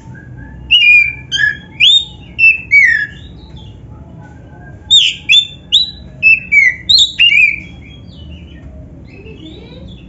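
Oriental magpie-robin (kacer), black-breasted form, singing: two loud runs of clear whistled notes, many sliding down in pitch, the first about a second in and the second around five seconds in, with softer twittering between and after.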